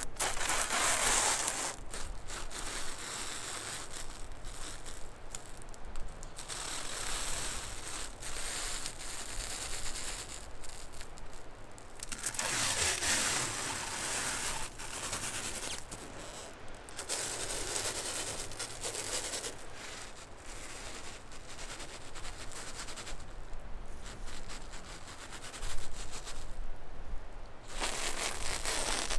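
Plastic stretch wrap film pulled off its roll and wound around wooden poles, rustling and crinkling in stretches of a few seconds with short pauses between them.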